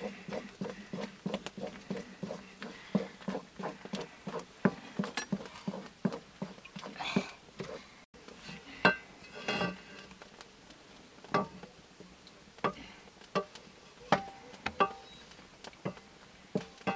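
Wooden spatula stirring nettle curry in an iron wok: quick, regular scraping and tapping strokes, about three a second, that thin out about halfway through into scattered knocks against the pan, some with a brief metallic ring.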